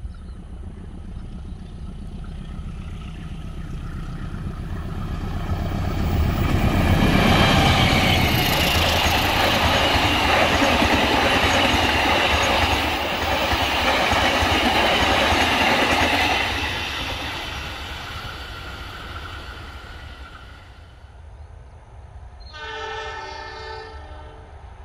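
Diesel-hauled passenger train passing close by: the locomotive grows louder as it approaches, then a long rush of carriage wheels running over the rails, fading as the train moves away. Near the end a train horn sounds once, briefly.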